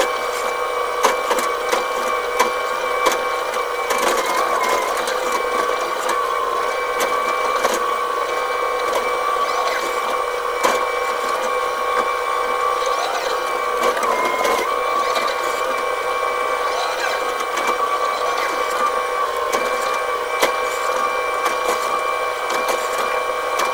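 Excavator's engine and hydraulics running steadily with a constant whine, heard from inside the cab; the whine wavers briefly a couple of times. Scattered clicks and knocks as the bucket works the soil.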